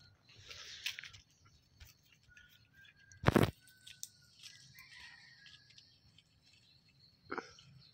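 Birds chirping faintly, with a single sharp knock, much the loudest sound, a little past three seconds in.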